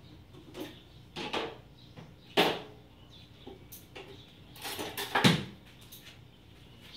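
Several short scraping and knocking noises, about one, two and a half and five seconds in; the last ends in a thump and is the loudest.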